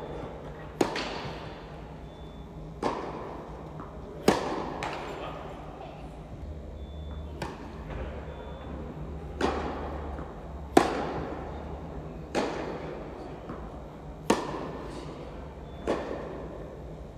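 Tennis ball struck back and forth by rackets in a baseline rally: sharp pops every one and a half to two seconds, alternating near and far, each echoing in a large indoor hall.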